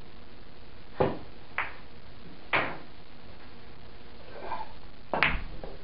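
A pool shot: the cue tip strikes the cue ball about a second in, followed by sharp clicks of billiard balls striking each other and the cushions, four clear clicks in all spread over a few seconds.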